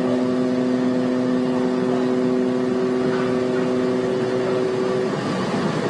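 A ship's horn sounding one long, steady blast that stops about five seconds in, over a steady rushing background noise.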